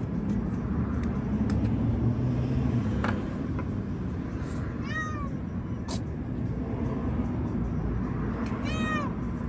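A feral cat meowing twice, short arching calls about halfway through and again near the end, over a steady low background rumble.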